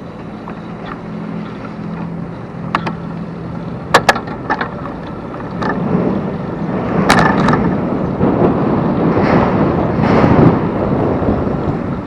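Bicycle ride picked up by a bike-mounted camera's microphone: a rushing road and wind noise that builds over the second half, with a handful of sharp clicks and rattles from the bike.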